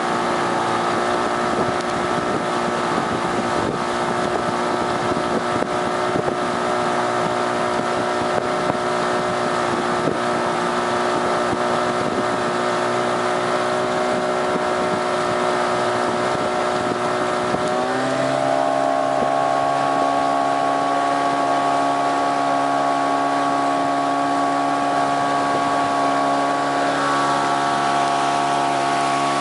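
Brand-new Parsun 15 hp outboard motor running under way, pushing the small boat at steady speed; about halfway through the revs step up a little and hold at the higher speed. Wind on the microphone and splashing water underneath.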